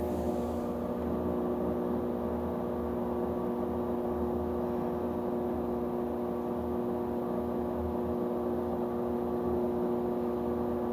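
Electrolux washing machine running with a steady humming drone of several held tones over an uneven low throb: the noise the owner is complaining about.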